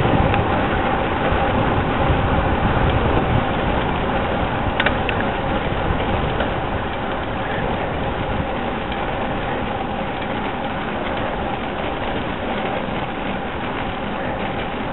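Road bike riding along a tarmac road: steady wind and tyre noise on a handlebar camera, with a faint steady hum. The low wind rumble is heaviest at the start and eases off, and there is a single click about five seconds in.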